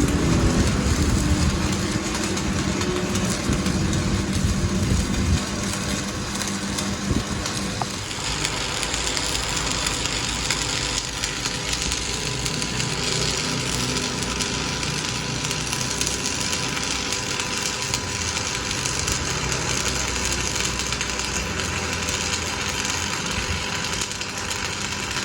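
Continuous machine noise: an engine-like rumble for about the first eight seconds, then a steadier, harsher hiss with a faint whine.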